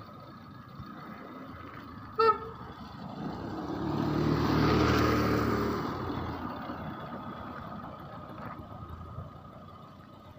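A short horn toot about two seconds in. Then a motorcycle passes close by, its engine and tyre noise rising to a peak and fading away.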